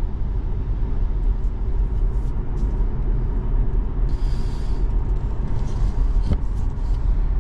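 Steady low rumble of road and tyre noise inside a moving Tesla Model 3, an electric car with no engine sound. There is a brief click about six seconds in.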